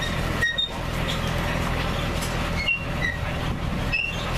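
Steady low engine hum from the vehicle of a wagon tour, running while the wagon waits. A few short high chirps are scattered over it.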